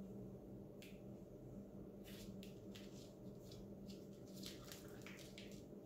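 Faint handling sounds of kitchen string being wrapped and pulled around a raw pork loin while trussing it like a roast: a scattering of soft scrapes and rustles over a steady low hum.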